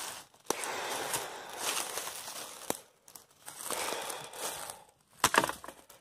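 A hiker's footsteps crunching and rustling through dry leaf litter on a forest trail, in two long stretches with a few sharp clicks between them.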